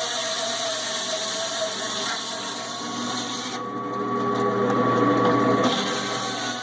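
Stark electric meat band saw running steadily as lamb is pushed through the blade, growing louder and heavier for a couple of seconds about two-thirds of the way in.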